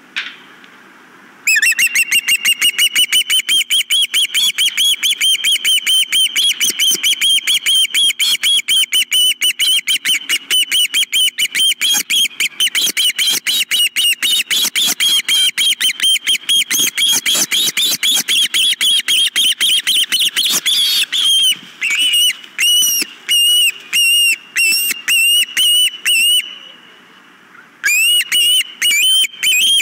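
Osprey calling: a long, rapid series of loud, high whistled chirps. Near the end the calls slow into spaced-out bursts, with a short break before they resume.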